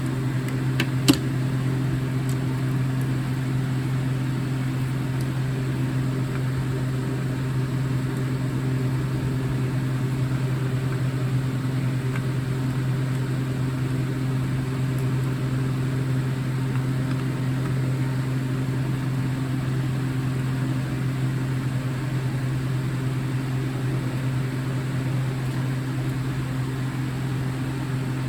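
A steady low mechanical hum, with one sharp click about a second in.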